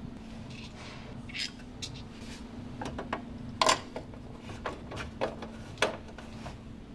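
Light clicks and metallic taps from a screwdriver worked in a slot of an aluminium gutter-mounting profile, with a sharper knock a little past halfway, over a faint steady hum.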